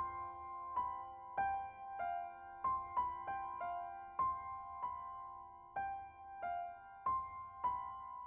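Background music: a slow, gentle piano-like melody of single struck notes, about one or two a second, each ringing and fading before the next.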